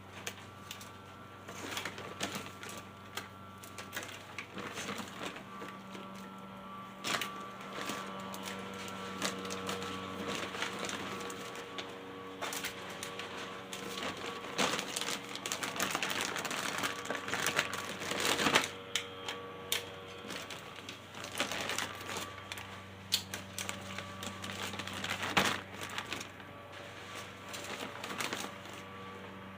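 Irregular clicks and clatter of small hard objects being handled, busiest around the middle, over a steady low hum.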